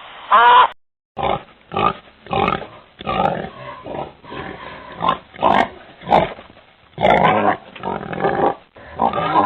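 Pigs grunting and oinking in a quick run of short calls, about one or two a second.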